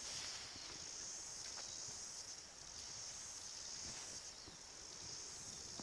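Steady high-pitched insect chorus in the bush, with faint rustling underneath.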